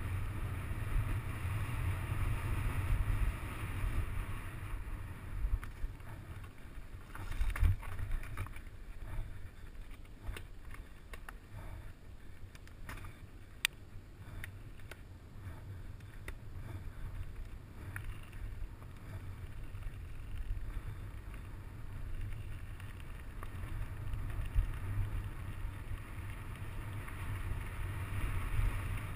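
Wind buffeting a helmet-mounted camera's microphone as a mountain bike descends fast, over a steady hiss of tyres rolling on dirt and gravel. From about seven to eighteen seconds in comes a run of sharp clicks and rattles from the bike over rough ground.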